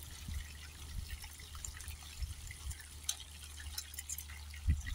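Whole tilapia frying in hot oil in a pan on a portable gas camp stove, the oil crackling and popping in quick irregular ticks. Wind rumbles low on the microphone, with a low thump near the end.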